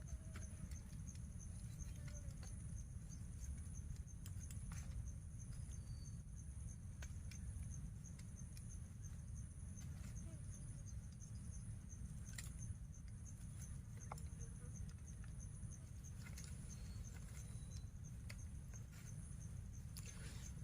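Steady high insect chorus in a mangrove forest, with two pulsing trills. Under it runs a constant low rumble, with scattered faint clicks and ticks.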